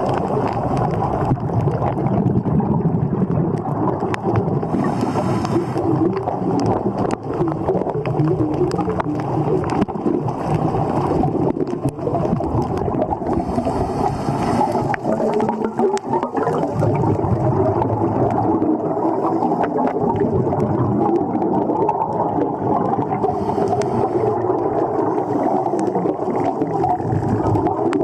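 Underwater rushing noise with a hiss of scuba exhaust bubbles about every nine to ten seconds, three times.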